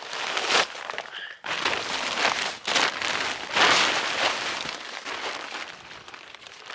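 Tarp rustling and crackling in irregular surges as it is handled and spread over a fallen tree, easing off in the last couple of seconds.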